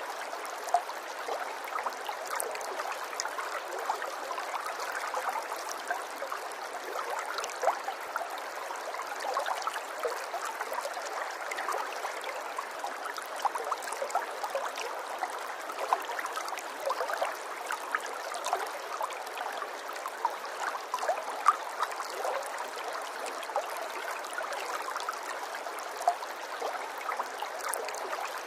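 Running water trickling and gurgling steadily, with many small splashes and drips.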